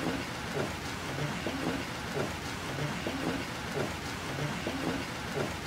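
Steady rain falling, with heavier drops landing close by two or three times a second in a dripping rhythm.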